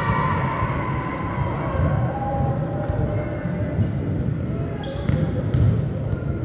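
Volleyballs being hit and bouncing on an indoor sports court, with players' voices echoing in a large hall. Two sharp hits stand out about five seconds in.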